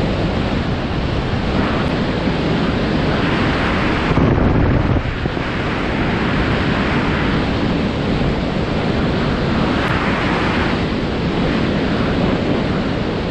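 Skydiving freefall wind rushing over a body-mounted camera's microphone: a loud, steady rush of air with slight swells.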